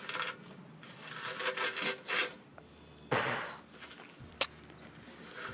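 Fiberglass packing and metal of a cut-open exhaust resonator being pulled and handled: rough rubbing and scraping in several short bursts, with a sharp click about four seconds in.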